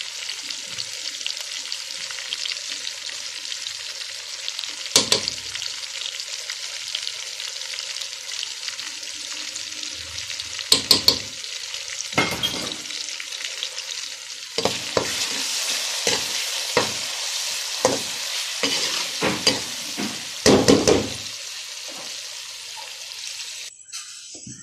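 Onion, tomato and green-chilli masala sizzling in hot oil in a metal pan, with a spatula scraping and knocking against the pan now and then. The sizzling gets louder about two-thirds of the way through and drops away suddenly near the end.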